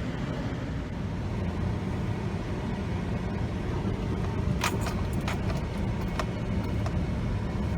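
Steady low road and engine rumble heard from inside a moving car, with a quick run of light clicks or jingles a little past the middle.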